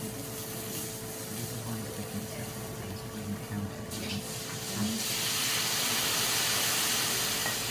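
Liquid poured from a bottle onto a hot teppanyaki griddle, breaking into a steady hissing sizzle of steam about five seconds in. Before that there is only a quiet background with a faint steady hum.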